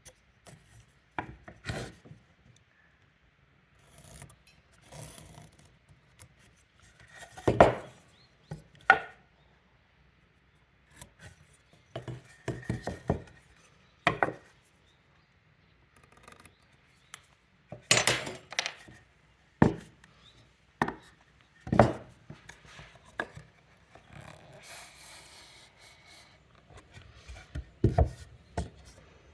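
Wooden timber being marked out by hand: irregular sharp knocks and taps as a carpenter's square and marking tools are set down and shifted on the wood, with short scraping strokes of lines being scribed.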